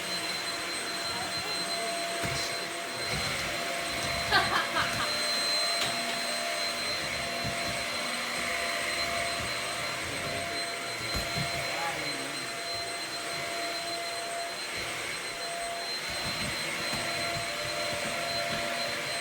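Shark vacuum cleaner running steadily, its motor giving a constant high whine over a rushing hiss, with a few brief knocks about four seconds in.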